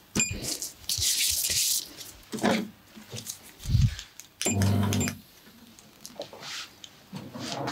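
Close-miked hands working on skin during a face massage: a series of short rubbing and brushing noises, with a hiss about a second in, a soft thud just before the middle and a brief low hum just after it.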